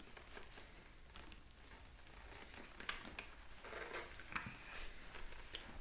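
Faint handling noises: scattered small taps, clicks and rustles as a toy doll and its vest are handled, with a soft breathy rustle about four seconds in.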